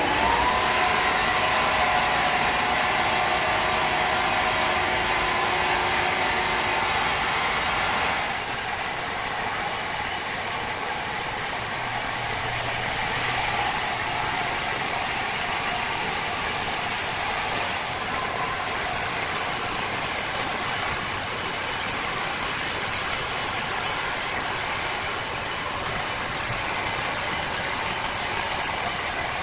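A motor-driven machine: its pitch rises as it speeds up, then it runs at a steady pitch. About eight seconds in the sound changes abruptly to a steadier, noisier machine din.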